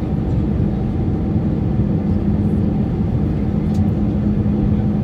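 Steady cabin noise of an easyJet Airbus jet airliner descending on approach: jet engine and airflow rumble with a steady low hum that grows a little stronger about two seconds in.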